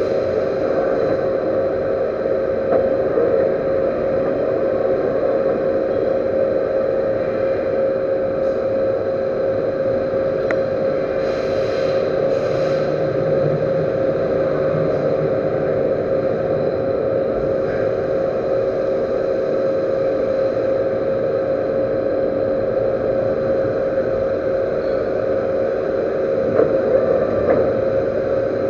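Metal lathe running steadily, its spindle drive giving a constant whine.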